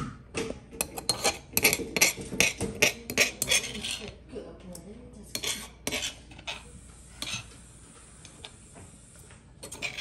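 Metal spoon scraping and clinking against a stone mortar and a ceramic bowl while scooping out a thick chili paste, with many quick strokes over the first six seconds, then only an occasional click.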